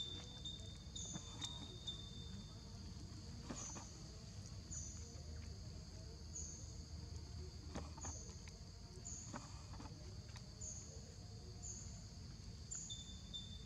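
Quiet outdoor insect chorus: a steady high-pitched whine that drops out a few seconds in and returns near the end, over a short high chirp repeating every second or so, with a few faint rustles and clicks.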